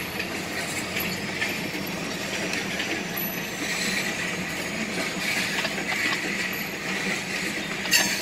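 Freight train of covered hopper cars rolling steadily across a road crossing, a continuous rumble of wheels on rail, with one sharp clank about eight seconds in.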